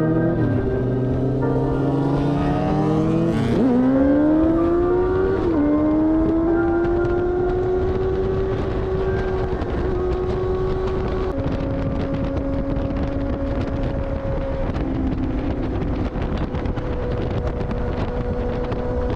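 Sport motorcycle engine accelerating hard, its pitch climbing and dropping sharply at two upshifts about three and a half and five and a half seconds in, then running at a steady cruising speed, with wind rushing over the microphone throughout.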